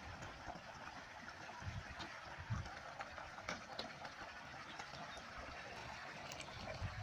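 Water pouring steadily from the open end of a PVC pipe into an earthen irrigation ditch, with a few soft thuds and scrapes of a shovel working wet soil, the clearest a couple of seconds in.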